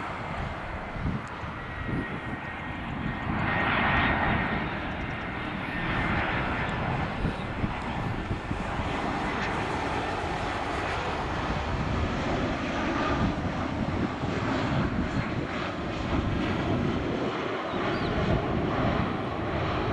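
Airbus A320 airliner's jet engines during landing: a continuous rumble with hiss that holds at a fairly even level.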